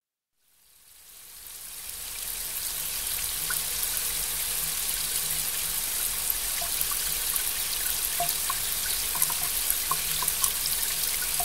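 Steady rain falling, fading in from silence over the first two seconds or so, with scattered individual drips heard among the steady hiss.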